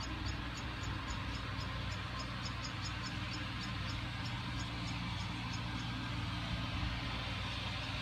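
Steady outdoor rush with a low rumble, over which a rapid series of short, high chirps repeats about four times a second, stopping about six seconds in.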